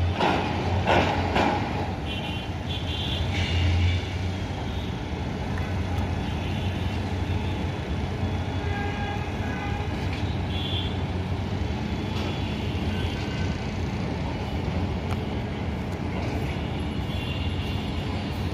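Distant city traffic noise: a steady low rumble, with a few short, faint high tones here and there.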